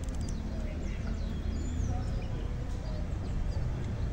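Small birds chirping now and then over a steady low rumble of outdoor background noise, with a few quick clicks right at the start.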